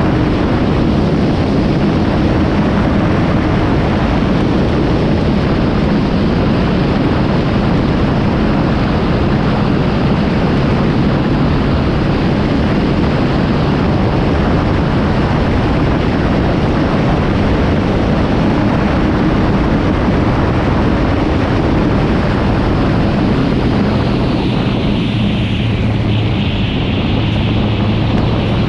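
Kawasaki Z750 motorcycle riding along, heavy wind rushing over the microphone over a steady engine note. Near the end the engine note drops lower.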